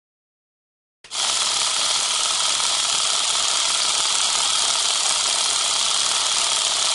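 Steady hissing noise from the sound effect of an animated film-countdown leader, starting suddenly about a second in after silence.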